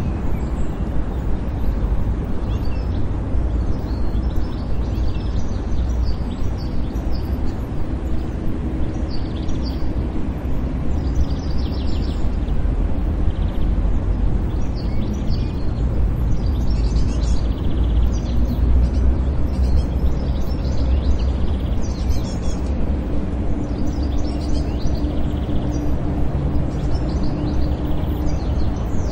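City park ambience: a steady low rumble of distant traffic with small birds chirping now and then.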